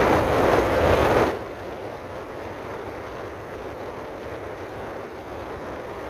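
Rushing wind and road noise of a vehicle driving along a road. A louder gust of rushing noise cuts off about a second in, and a steadier, quieter rush follows.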